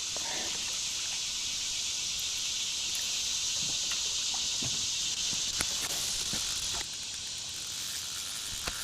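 Steady hiss of fast-running high river water, with a few faint knocks and clicks scattered through it.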